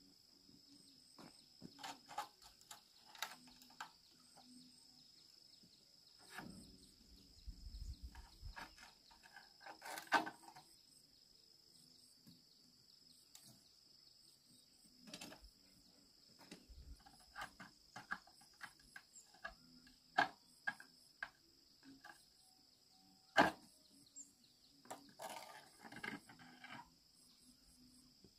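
Insects calling steadily in a high, even drone, with scattered knocks and clicks over it, the loudest about ten and twenty-three seconds in.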